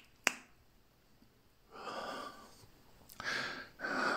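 A single sharp click near the start, then a person's breathy exhalations, three in a row, the last the longest.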